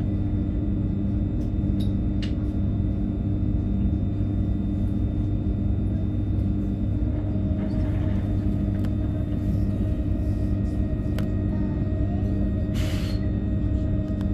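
Steady low machine hum made of several held tones, with a higher tone joining about halfway through and a short hiss of air near the end.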